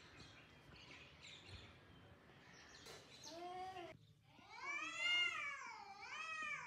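Cats yowling at each other in a fight standoff: a short yowl about three seconds in, then a long, louder yowl that wavers up and down in pitch through the second half.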